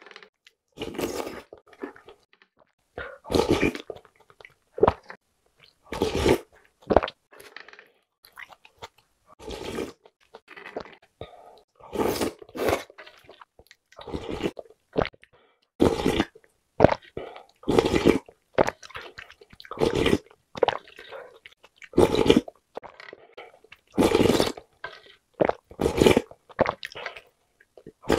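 Close-up mouth sounds of someone slurping and sipping spicy noodle-soup broth from a ladle, a sharp slurp every second or two with short gaps of swallowing and eating between them.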